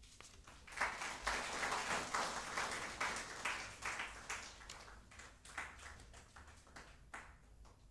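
Audience applauding. The clapping starts about a second in, holds for a few seconds, then thins to scattered single claps and dies away near the end.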